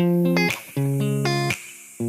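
Music: a short looped phrase of plucked, guitar-like chords. Each pair of chords ends in a quick rising run of notes and a sharp click, and the phrase repeats about every two seconds.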